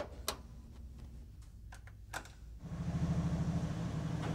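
A few light metal clinks as the winch hook is set, then about two and a half seconds in a Mile Marker hydraulic winch, driven off the engine's power steering pump, starts pulling with a steady mechanical hum under load.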